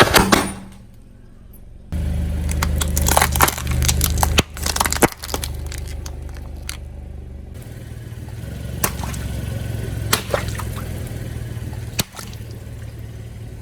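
Car tyre slowly rolling over and crushing objects, giving scattered cracks, crackles and snaps, while the car's engine runs with a low steady hum that starts about two seconds in.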